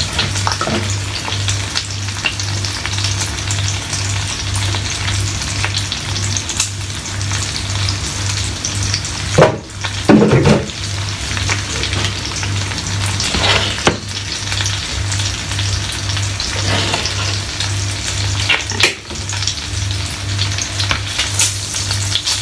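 Scrambled eggs and bacon sizzling in a frying pan, with the scrape and clatter of a utensil stirring now and then and a loud knock about ten seconds in. A low hum pulses evenly underneath.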